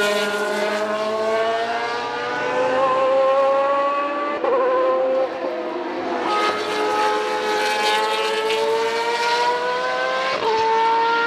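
Boss GP single-seater race cars' engines at high revs. The pitch climbs steadily, then drops sharply at an upshift about four and a half seconds in and again near the end.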